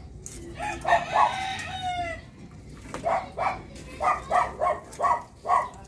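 A rooster crows once, a single long call that falls in pitch at its end, starting about half a second in. From about three seconds in, a dog barks in a quick string of short barks.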